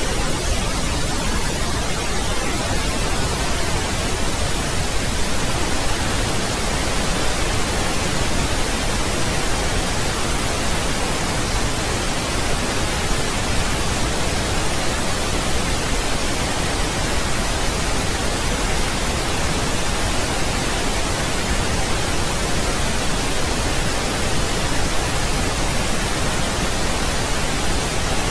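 Steady, unchanging pink noise: an even hiss spread across all pitches, with no events or variation.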